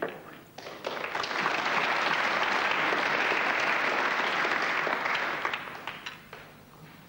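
Snooker audience applauding, building about a second in and dying away near the end, after a few sharp clicks of snooker balls at the start.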